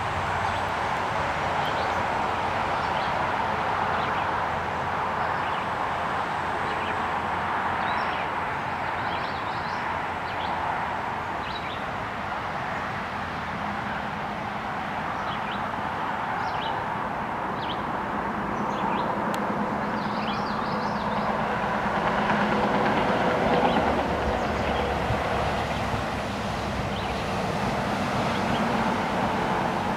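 Steady vehicle noise, swelling a little about three-quarters of the way through.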